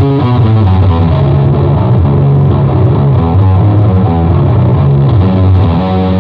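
Heavy rock riff on a distorted Gibson Les Paul Custom electric guitar through a Mantic Vitriol distortion pedal, with a Pedulla Thunderbass five-string bass guitar and drums playing along.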